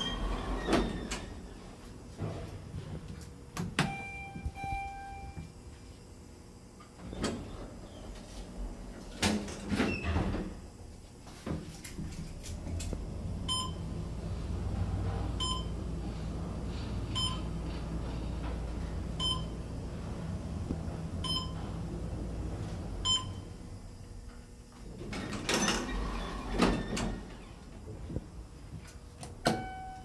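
Schindler 500A traction elevator cars in service: sliding doors working with clicks and knocks, and a short held chime tone a few seconds in and again near the end. In the middle the car travels with a steady low hum, and a short beep repeats about once a second.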